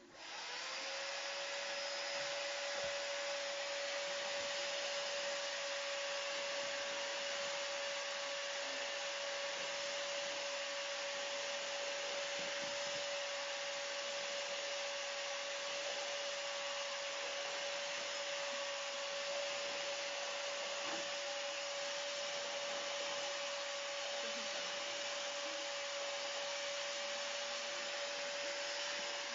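Vacuum cleaner switching on and running steadily: its motor spins up in the first second to a steady hum over the rush of air.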